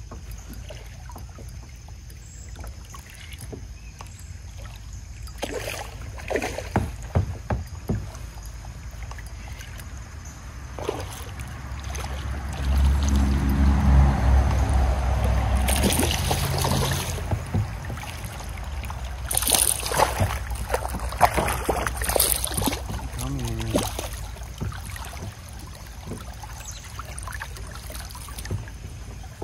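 A hooked smallmouth bass splashing at the water's surface beside a kayak as it is fought and landed. Sharp splashes come about six seconds in and again around twenty seconds, with a stretch of low rumble in the middle.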